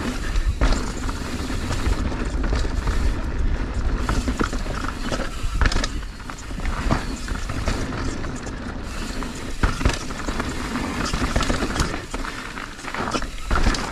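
Mountain bike descending a dirt and rock trail: tyres rolling over the ground with frequent knocks and rattles from bumps, and wind rumbling on the camera's microphone.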